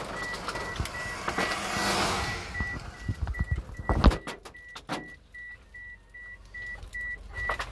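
Inside a car: a warning chime beeping steadily at one pitch about three times a second, under a rushing noise that swells and fades about two seconds in. About four seconds in come a heavy thump and several sharp knocks from the phone being handled.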